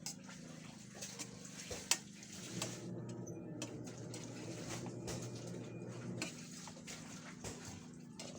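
Scattered clinks and taps of eating on a plate, the sharpest about two seconds in. A steady low hum runs underneath.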